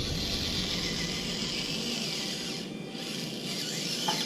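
Small electric motor and gear train of a 1/24-scale RC crawler truck whining steadily as it drives up a steep 45-degree ramp, with a brief dip near three seconds in.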